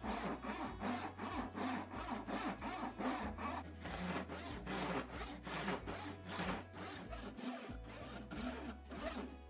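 Vintage handsaw cutting through a hickory board clamped in a vise, with quick, even back-and-forth strokes about three a second that ease off a little near the end. Faint background music underneath.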